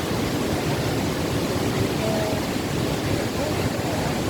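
Steady rushing noise of a large waterfall, the Cascata delle Marmore, its falling water pouring without a break.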